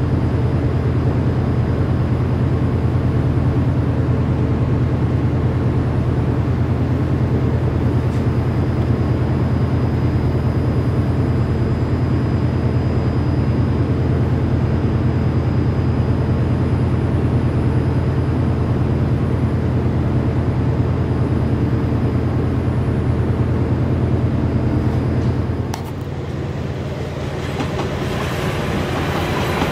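Chiltern Class 68 diesel locomotive idling with a steady low drone and a faint high whine. About 26 s in, the sound cuts to a West Midlands Railway Class 172 diesel multiple unit running past, its noise rising near the end.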